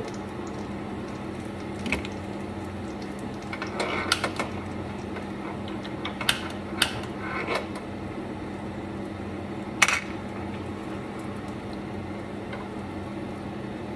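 Gas stove burner under a frying pan being turned back on and relit: a handful of sharp clicks and light clatters, the loudest about ten seconds in, over a steady low hum.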